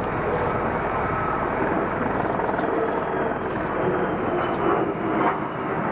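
F-35 Lightning II fighter jets in flight, their jet engines giving a steady roar, with a faint high whine that slowly falls in pitch in the second half.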